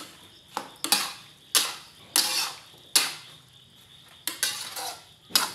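Metal spatula scraping and clanking against a metal wok while tossing glass noodles and vegetables, in irregular strokes, roughly one or two a second, each a short scrape that fades quickly.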